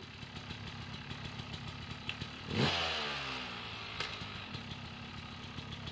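Dirt bike engine running at low revs, blipped once about two and a half seconds in, the pitch then falling back to idle. A sharp knock about four seconds in.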